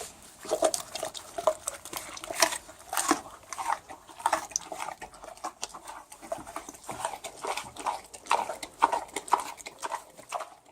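A pig eating: irregular wet chomping and smacking, several bites a second, which cuts off abruptly near the end.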